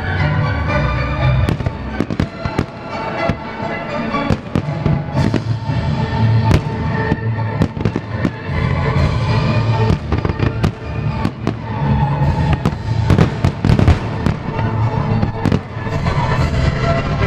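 Aerial fireworks shells bursting one after another in a dense, irregular string of bangs and crackles over a constant low boom, with music playing underneath.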